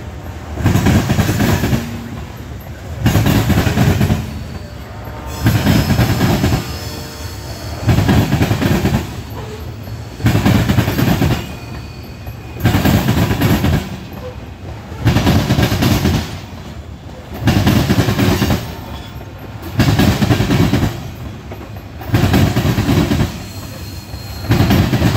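Freight train's covered hopper cars rolling past at close range: a heavy rumble and clack about every two seconds as each car's wheel sets pass, over steady rolling noise. Faint high wheel squeals come through now and then.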